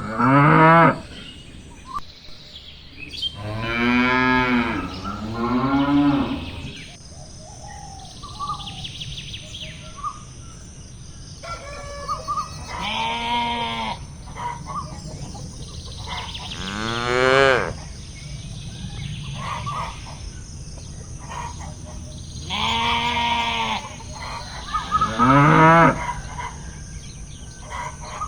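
Cattle mooing: about seven drawn-out moos, spread out with pauses of a few seconds between them.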